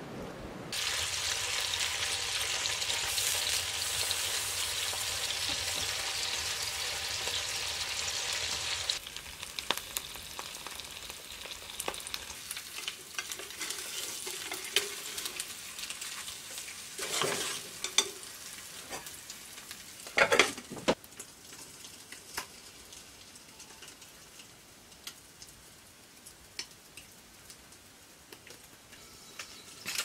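Eggs frying in a pan. A loud, steady sizzle lasts until about nine seconds in, then a softer sizzle follows, with a spatula clicking and scraping against the pan twice, around the middle.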